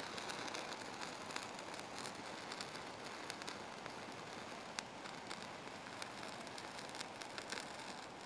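A small piece of all-weather fire-starter tinder burning with a low flame, crackling faintly with irregular small ticks over a steady hiss.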